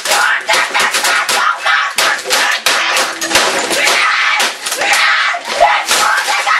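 A boy screaming in rage while slamming a computer keyboard on a desk again and again, a rapid run of loud clattering smacks.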